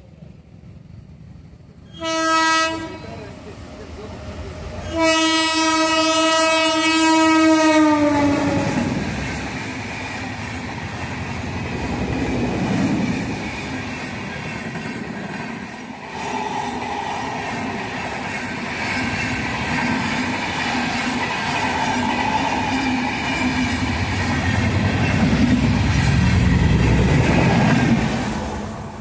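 Avantika Express passing at about 100 km/h. The locomotive horn gives a short blast, then a long one whose pitch drops as the engine goes by. The coaches' wheels then clatter steadily along the rails until the last coach passes and the sound fades near the end.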